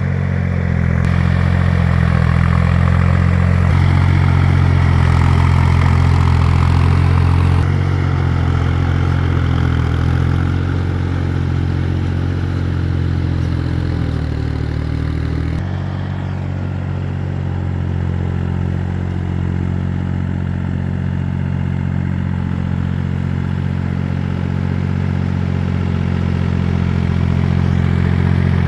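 Engine of a two-wheel walk-behind tractor (hand tractor/tiller) running steadily with a clattering note. Its pitch shifts a few times and dips briefly just past the middle.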